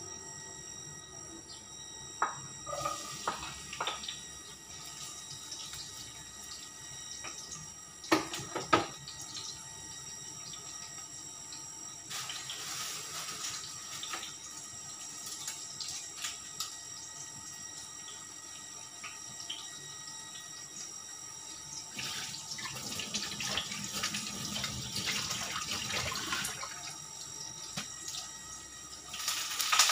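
Kitchen tap water running into a sink in spells, with a few knocks and clatters of kitchenware in between.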